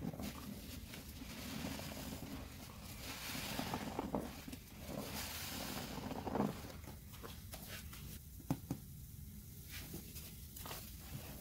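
Dense, not-yet-broken-in sponges squeezed in a tub of thick pine-cleaner suds: wet squelching with the crackle of foam, swelling with each squeeze. After about seven seconds the squelching eases into scattered soft clicks and pops of settling foam.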